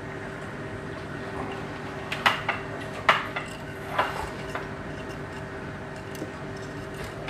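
Clicks and light knocks of hard parts being handled, from an aquarium LED lamp and its fittings being fitted together. The loudest few come in a cluster between about two and four and a half seconds in, over a steady low hum.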